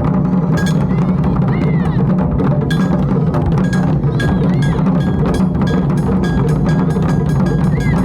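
Japanese taiko drum ensemble playing fast, dense drumming, with a bright ringing stroke repeating at regular intervals over the drums.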